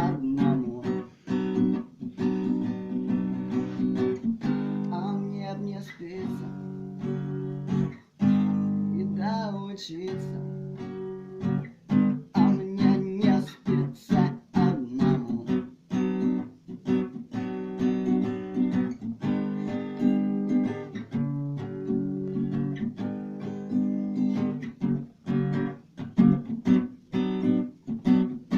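Acoustic guitar strummed in a steady rhythm of repeated chords, with no singing.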